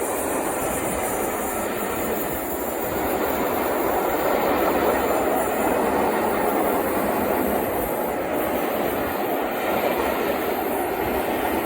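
A pair of British Rail class 47 diesel-electric locomotives passing with a train of coaches: engines running and wheels on the rails, a steady rumble that swells slightly partway through.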